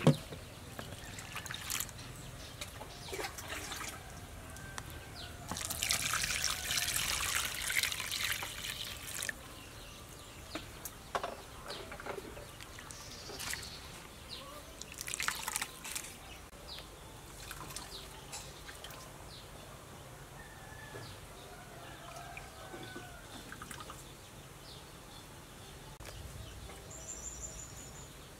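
Water splashing and squelching in a plastic bowl as hands squeeze and knead wet grated coconut to press out coconut milk. About six seconds in there are a few seconds of louder, steady splashing, as water goes into the coconut.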